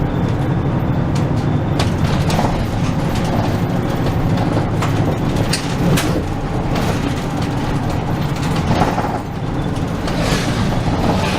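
Route bus driving, heard from inside the passenger cabin: a steady low engine and road drone with scattered rattles and clicks from the bus interior.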